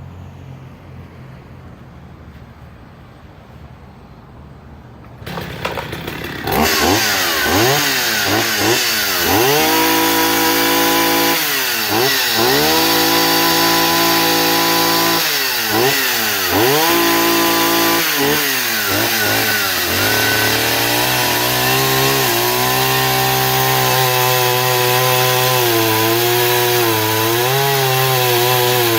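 38-year-old Partner two-stroke chainsaw starting about five seconds in, then revved up and down several times; from about twenty seconds in it runs at high revs with the pitch dipping and recovering as it cuts into firewood.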